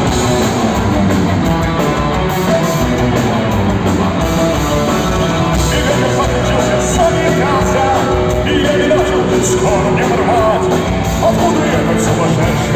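Rock band playing live: electric guitars and drums, with singing over them.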